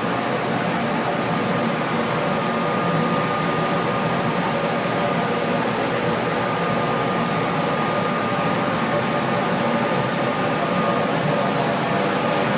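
Steady running of boiler-room machinery: an unbroken mechanical hum and rush with a faint steady high tone over it.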